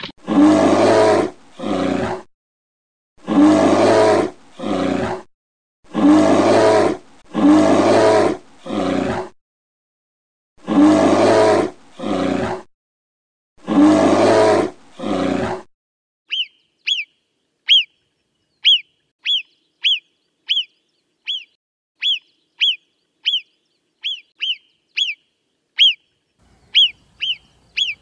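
Eurasian brown bear growling in deep, rough roars, mostly in pairs of a long and a shorter call. A little past halfway these stop and Alpine marmot alarm whistles begin: short, sharp, high calls falling in pitch, repeated about once or twice a second.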